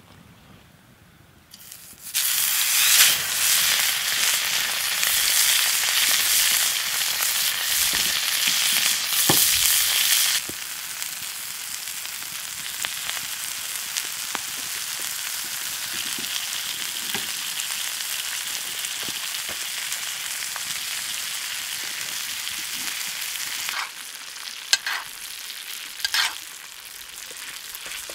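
Steak sizzling in hot fat in a cast-iron skillet over a campfire. The sizzle starts suddenly and loud about two seconds in and eases to a softer, steady sizzle after about ten seconds. Near the end a spoon clicks against the pan a few times as the steak is basted with butter and garlic.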